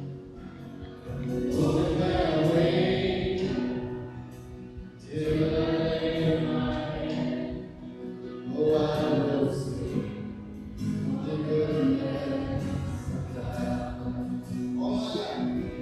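Choir singing a slow hymn in long swelling phrases, each rising and fading over three to four seconds.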